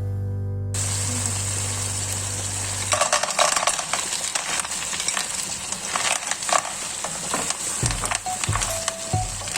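Food frying in a pan of hot oil: a steady sizzle that turns to dense crackling and popping about three seconds in.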